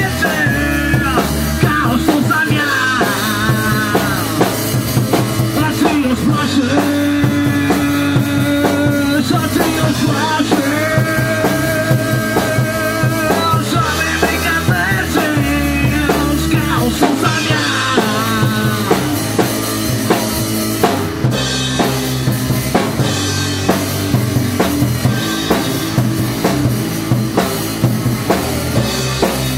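Live rock band playing, with electric guitars, bass and a drum kit keeping a steady beat. Melodic lines bend in pitch above the rhythm.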